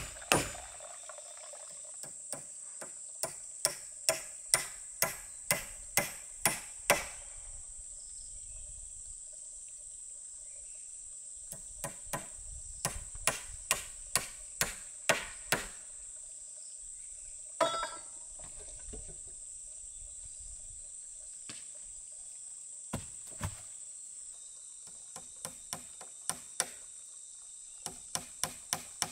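Hand hammering on a wooden log frame: runs of sharp blows about two a second, stopping and starting, with one ringing strike a little after the middle. A steady high insect buzz runs underneath.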